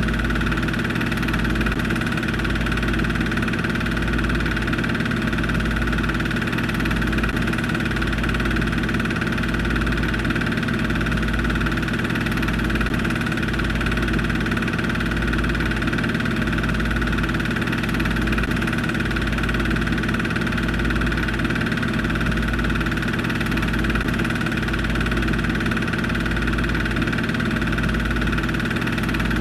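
Steady mechanical hum, with a low throb that pulses about once a second.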